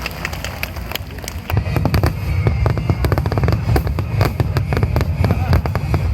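Aerial fireworks bursting: a dense run of sharp crackling pops over deep booming rumble, the rumble growing much heavier about a second and a half in.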